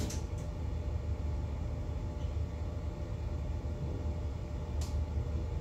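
Steady low rumble of a superyacht's engines running at slow manoeuvring speed, with one faint click near the end.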